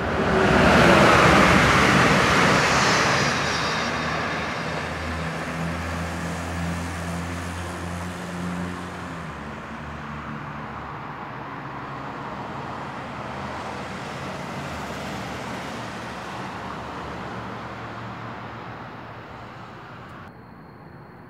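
Amtrak train on the Northeast Corridor passing the station at speed: a rush of wheel-on-rail noise peaks about a second in with a falling pitch, then settles into a low hum that slowly fades as the train recedes. The sound drops abruptly near the end.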